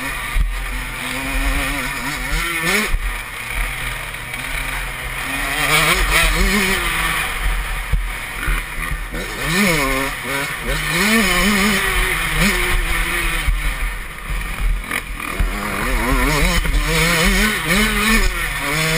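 Dirt bike engine heard from a camera mounted on the bike, revving up and dropping back over and over as the rider opens and closes the throttle and shifts gears, with wind rushing over the microphone.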